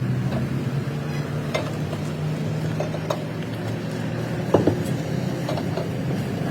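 Steady low machine hum in a metal fabrication workshop, with a few sharp metal clinks, the loudest ringing briefly about two-thirds of the way through.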